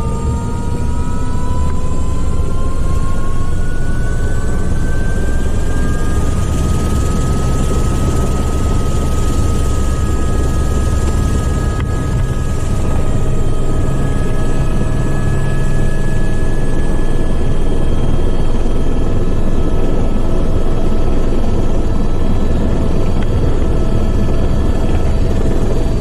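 Airbus helicopter's turbine engine and rotor, heard from inside the cabin, running up to speed. Several whining tones rise in pitch over the first six seconds, then hold steady over a heavy low rotor rumble.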